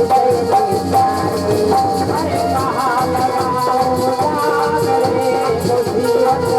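Instrumental interlude of devotional katha music: a held, wavering melody line over steady drum beats and a shaking rattle rhythm.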